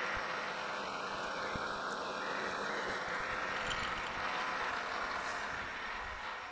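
Precision Matthews PM-1127 metal lathe running steadily while its tool takes the final light cut on the point of a turned steel dead center.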